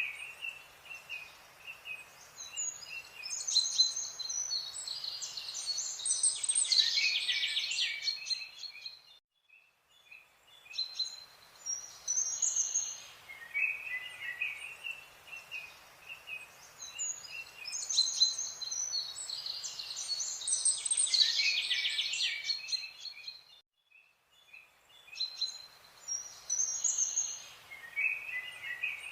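Birds chirping and singing in clusters of high twittering calls over a faint, even hiss. The same stretch of birdsong repeats about every fourteen and a half seconds, broken twice by a short, nearly silent gap.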